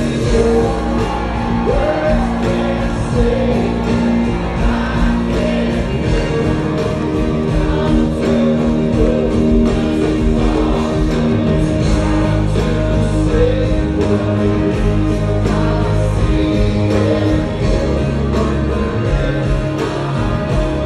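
Live rock band playing, with electric guitars, bass and drums, and voices singing.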